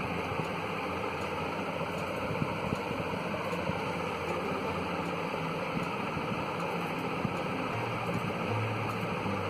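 Steady background noise: an even hiss with a faint low hum under it, and no distinct events.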